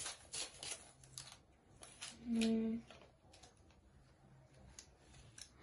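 Scattered light plastic clicks and taps from a small hand tool being handled, with one short hummed vocal note about two and a half seconds in.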